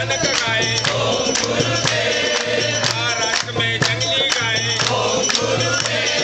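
A group singing a devotional chant together, with jingling hand percussion striking a steady beat and a low tone pulsing under the voices.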